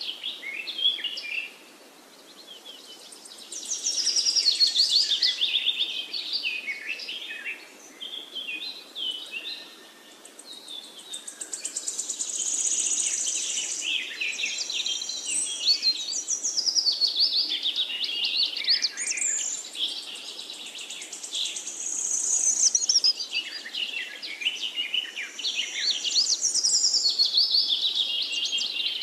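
Several birds chirping and singing at once: quick high calls and rapid rattling trills overlapping, swelling and fading in loudness.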